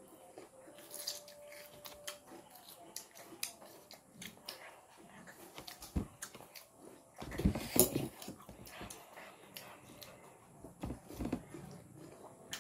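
Two people eating crisp tambis (water apple) with forks, with chewing and scattered light clicks of forks on the plate. A brief louder noise comes about seven to eight seconds in.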